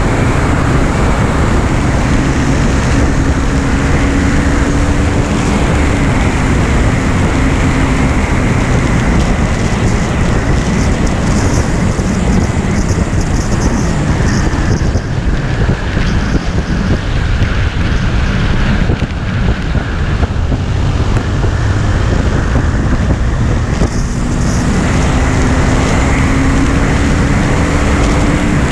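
KTM Duke 390's single-cylinder engine running at road speed under heavy wind rush on the microphone. The engine note falls slowly over the first several seconds and climbs again near the end.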